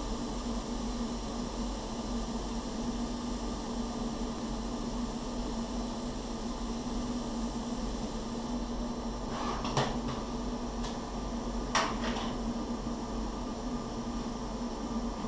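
Hybrid CNC machine running during laser cladding of a turbine blade: a steady hum with a constant tone under a hiss. The high part of the hiss drops away a little past halfway, and two short sharp hisses follow, around ten and twelve seconds in, as the cladding stops and the machine moves toward a tool change.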